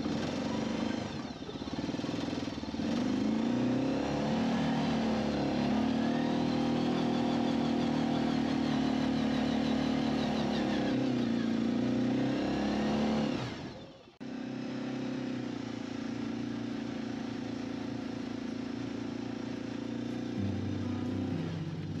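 Side-by-side UTV engine running while driving over snow, its pitch rising and falling with the throttle. About fourteen seconds in the sound breaks off sharply, then carries on as a steadier engine drone.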